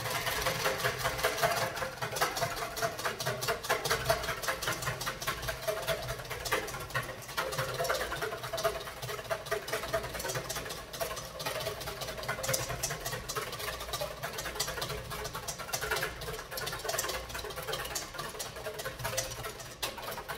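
Wire whisk beaten vigorously against a stainless steel bowl, its wires clicking and scraping on the metal in a rapid, steady rhythm. It is whisking egg yolk and vinegar as oil is dripped in, the start of emulsifying an aioli.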